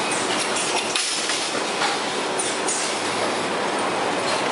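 Automatic carton palletizing line running: steady mechanical clatter of conveyors and the palletizer, with scattered clicks and knocks and faint hissing.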